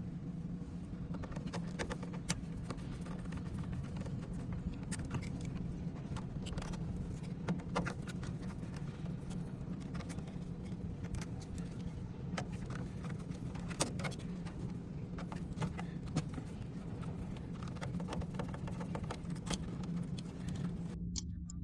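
Scattered small clicks and taps as wires are unfastened and pulled from a contactor's terminals, over a steady low hum.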